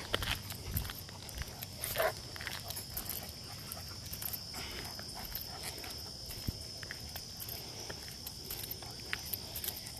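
Crickets chirring steadily, over the footsteps of a walker and dogs on pavement, with a short falling squeak about two seconds in.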